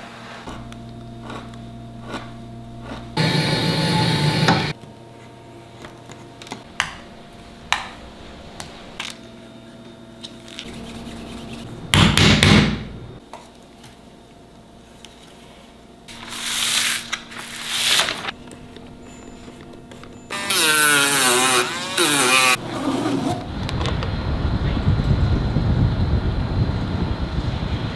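Leather-working tool sounds: a knife scraping and cutting on leather with scattered light taps, broken by several louder bursts of noise. A steady noisy outdoor sound takes over in the last few seconds.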